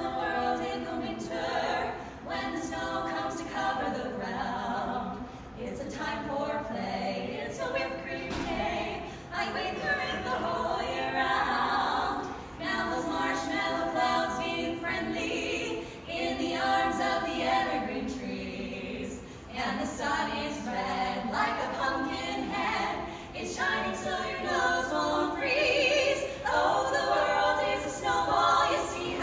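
A cappella vocal group singing a song in close harmony, several voices with no instruments.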